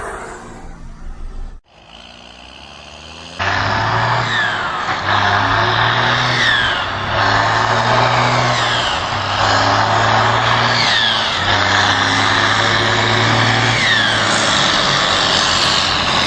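Tractor diesel engine with a comb fitted in the turbo intake, revved in repeated pulses. Each time the throttle lets off, the turbo gives a high whistle that falls in pitch. The loud engine comes in suddenly about three seconds in, after a quieter lead-in.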